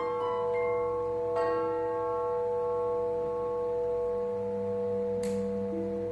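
Music from the piece's original score: sustained, ringing bell-like tones over a steady held note, with a new note struck about a second and a half in and a lower note coming in at about four seconds.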